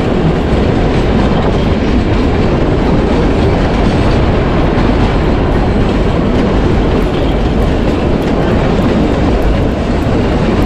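The Kalka–Shimla narrow-gauge toy train running along the track, a loud, steady rumble of wheels and rails with faint clicks of the wheels over rail joints.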